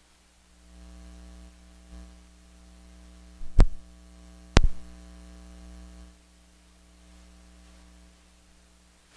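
Electrical mains hum, a steady buzz that comes in under a second in and fades out about two-thirds of the way through. Two sharp pops come about a second apart near the middle.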